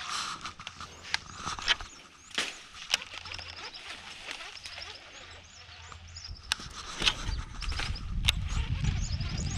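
Sharp clicks and knocks from handling a baitcasting rod and reel, over rows of short, high, repeated chirps from wildlife. A low rumble comes in about seven seconds in.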